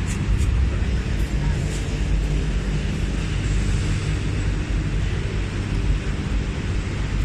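Steady low rumble of exhibition-hall background noise, with a few faint clicks in the first two seconds.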